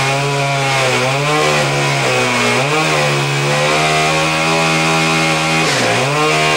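Gasoline chainsaw running at high revs while cutting into a thick slab of painted, laminated plywood. Its engine note sags briefly about three times as the bar bites into the wood, most deeply near the end.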